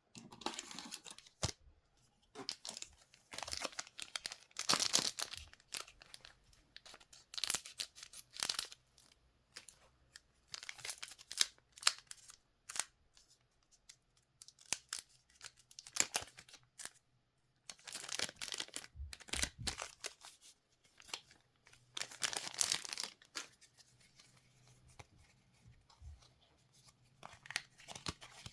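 Goddess Story Flower Girl trading-card packs being torn open by hand, their wrappers crinkling, in irregular bursts of tearing and rustling with short pauses between.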